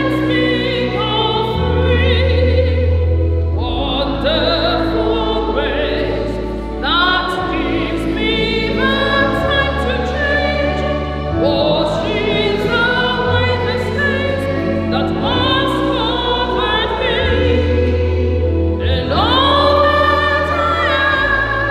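Voices singing church music over held accompanying chords, the low bass note changing every two seconds or so.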